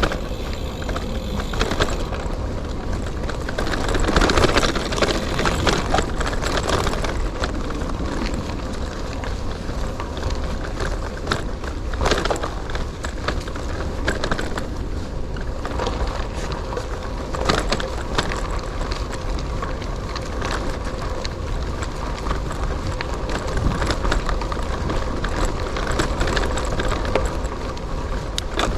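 Gravel bike riding along an off-road trail: a steady rumble of tyres and rushing air, with frequent sharp knocks and rattles as the bike goes over bumps in the surface.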